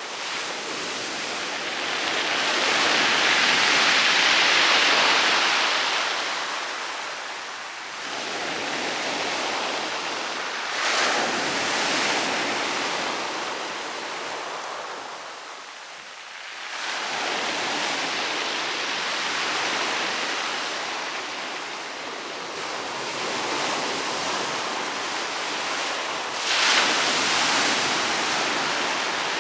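Rough sea waves breaking on a pebble beach: a continuous hiss that swells and ebbs as waves come in over the stones and draw back. There is a sharper break about eleven seconds in, another near the end, and a brief lull in between.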